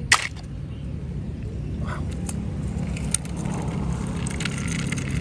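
Die-cast toy cars being handled, giving a few light clicks over a steady low outdoor rumble, with one sharp click just after the start.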